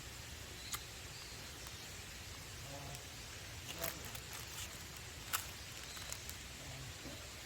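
Faint steady hiss with a few scattered sharp clicks and small knocks, the loudest about two-thirds of the way through.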